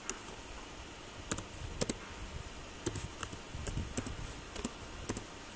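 Computer keyboard keys being typed: irregular single keystrokes, a few a second with gaps between.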